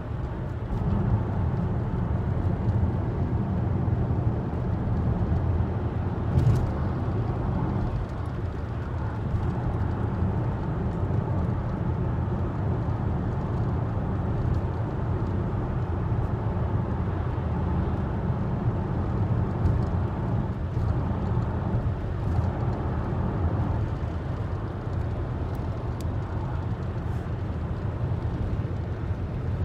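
Steady low rumble of tyre and engine noise inside a moving car's cabin.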